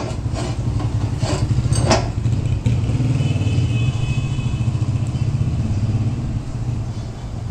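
A steady low drone of a motor or engine running, with a few short rubbing strokes in the first two seconds as a cloth rag wipes a steel bearing cup.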